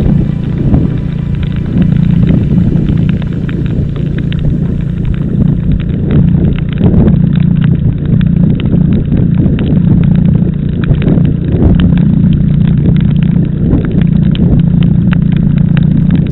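Car driving along a highway, heard from the vehicle: a steady low engine and road drone with frequent irregular clicks and knocks.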